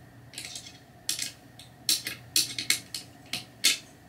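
Small metal hex key turned in a screw head by the fingers, clicking and clinking against the metal at irregular moments, about ten light ticks, the loudest near the end.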